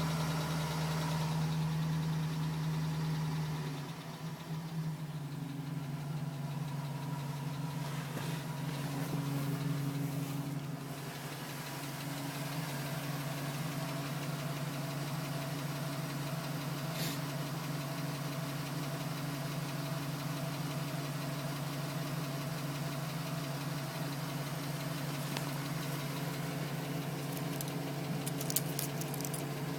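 2010 GMC Sierra's engine idling steadily with a tapping noise that the owner suspects is piston slap. Its deepest hum drops away about four seconds in.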